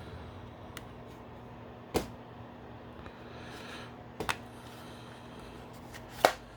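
Hard plastic toy parts clicking as a seat belt piece is fitted and snapped onto a G.I. Joe BUGG toy vehicle: four sharp clicks, the loudest near the end, over a faint steady hum.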